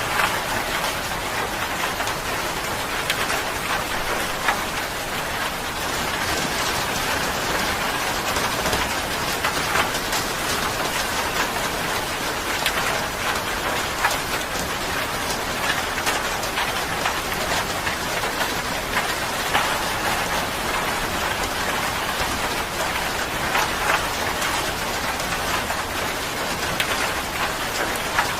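Steady rain falling on a surface, a dense even hiss with many individual drop ticks scattered through it.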